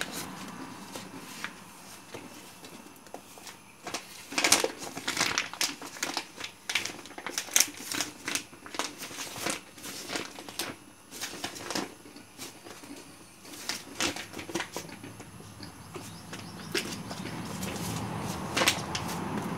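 Clear plastic sheet over a stingless-bee hive box crinkling and crackling in irregular bursts as hands handle and smooth it.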